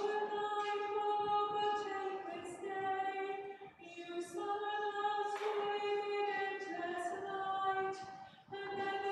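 Voices singing part of the communion liturgy, holding long steady notes in short chant-like phrases, with brief breaths between phrases about four and eight and a half seconds in.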